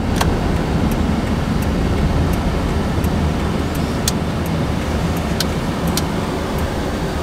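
Car driving along a paved road: steady engine and tyre rumble with a dozen or so brief ticks scattered through it.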